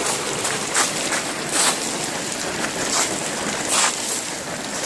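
Steady rush of rain and running storm water over hail-covered ground, with a few short crunches as boots step on the hailstones.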